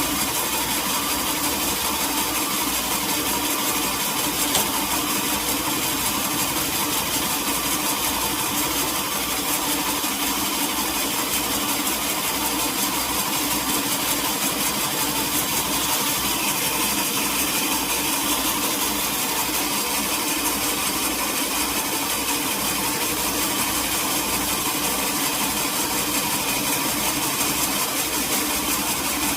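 Sawmill machinery running steadily: an engine's low, even pulse under a constant mechanical hum.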